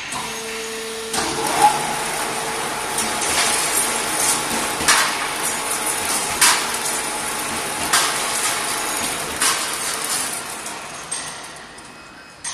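Steel wire straightening and cutting machine running: a steady whir as wire feeds through, with a sharp clack about every one and a half seconds as the cutter chops off a length of rod. A motor hum is heard for about a second before the whir starts, and the noise dies away near the end.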